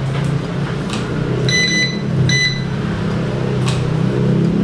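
Two short electronic beeps from a toy quadcopter's remote controller about a second and a half in, with a few clicks as its buttons are pressed, over a steady low hum.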